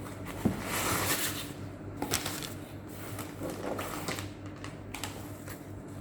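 Small objects and packaging being handled on a table: a run of light clicks and taps, with a short rustle about a second in.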